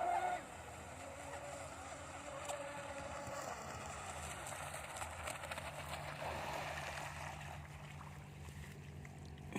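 Electric RC catamaran running on the water some way off: a faint, wavering motor whine over a steady wash of noise.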